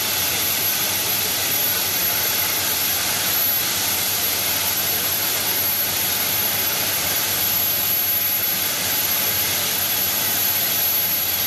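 Pacific-type steam locomotive No. 824 hissing steadily as it vents steam, with no exhaust beats.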